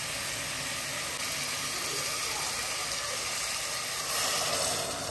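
A steady hissing noise, a little louder about four seconds in.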